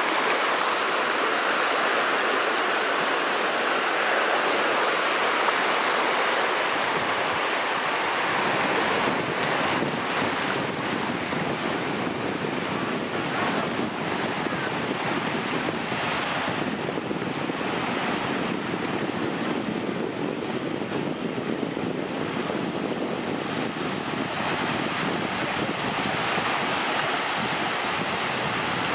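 Small Gulf of Mexico waves washing in shallow surf, with wind blowing on the microphone. A brighter hiss of close water fills the first eight seconds or so, then a lower, duller rush takes over.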